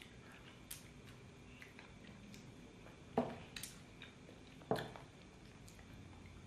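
Quiet eating sounds of soft, creamy durian flesh being eaten by hand: a few short wet mouth smacks and clicks over low room tone, the loudest about three seconds in and again just before five seconds.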